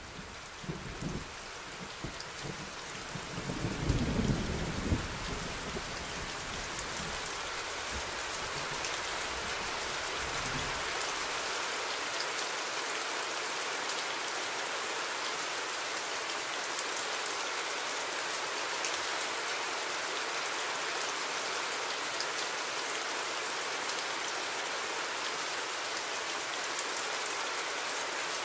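Steady rain falling, with a rumble of thunder over the first ten seconds or so, loudest about four seconds in, then the rain goes on alone.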